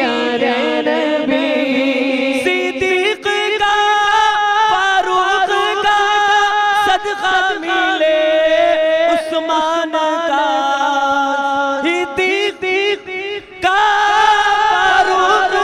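A man singing a naat, an Urdu devotional song in praise of the Prophet, through a microphone and PA, unaccompanied, in long drawn-out, ornamented notes. There is a brief pause for breath about twelve seconds in before he goes on.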